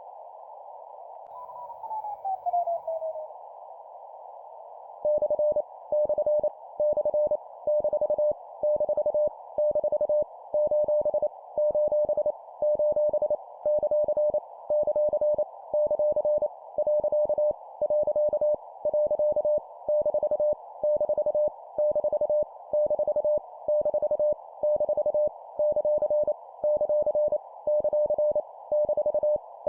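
Morse code (CW) practice tone, a single pitch keyed on and off in dots and dashes at 25 words per minute, starting about five seconds in over a steady band of hiss. Before the keying, a short tone slides down in pitch.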